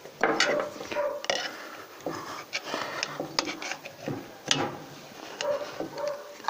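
Hand tools scraping and clicking against the IV-98E vibrator motor's terminal box as the sticky compound around its wires is picked out. There are irregular sharp clicks and scrapes, with a few short squeaks.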